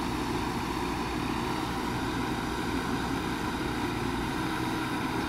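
JCB backhoe loader's diesel engine running steadily as its backhoe arm digs soil and lifts the loaded bucket.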